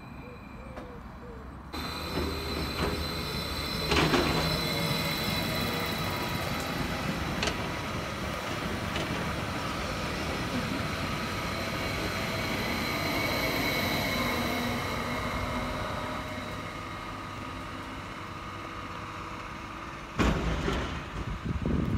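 Electric multiple-unit passenger train running past close by: steady rumble of wheels on rail, with a sharp knock about four seconds in, a lighter one a few seconds later, and a thin wheel squeal. The passing noise fades off, then near the end the sound cuts abruptly to a louder, rougher low rumble.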